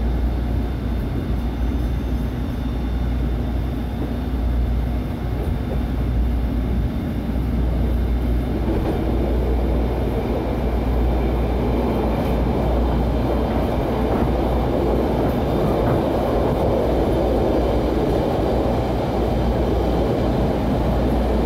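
Inside a SEPTA Route 101 trolley, a Kawasaki light rail car, running along the track: a steady low hum under a rumble of wheels on rail. The rumble grows louder about eight seconds in as the car picks up speed.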